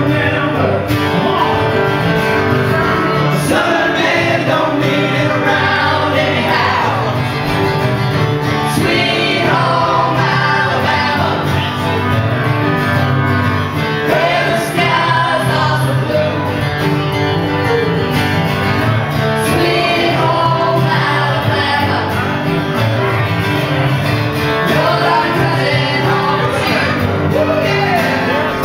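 Live acoustic band playing a song, with voices singing in harmony over the instruments.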